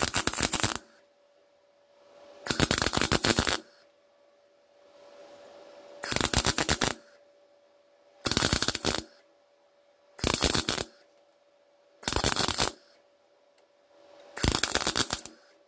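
MIG welder laying seven short tack welds on sheet steel, each a burst of rapid crackling lasting under a second, about two seconds apart, stacking tacks into a seam. A faint steady hum runs between the tacks.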